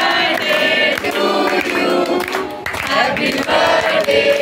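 Several voices singing together in chorus.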